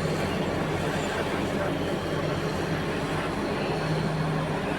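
Heavy diesel engines of large mining equipment running steadily: a constant low drone.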